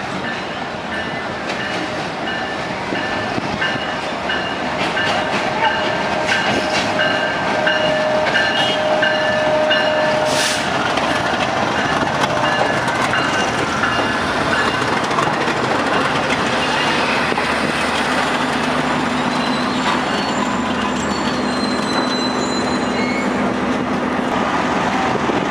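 Passenger train with a diesel-electric locomotive rolling into a station. Its rumble and wheel clatter get louder over the first several seconds, and brief high-pitched wheel-squeal tones come and go.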